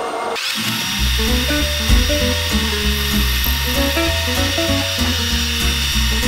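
Background music with a pulsing bass beat and a stepping melody, starting about half a second in. Under it runs a steady high-pitched whine, the sound of aluminium being cut on a metal lathe.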